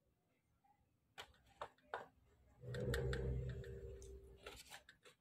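Wet mouth clicks and lip smacks of a man eating roast pork, with a low steady hum lasting about two seconds in the middle.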